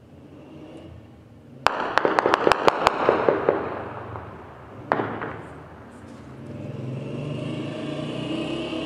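Heavy weapons fire during night shelling: a sudden blast and then a rapid burst of about seven cracks in just over a second, echoing off buildings, a single crack a couple of seconds later, then a steady rumble that slowly builds.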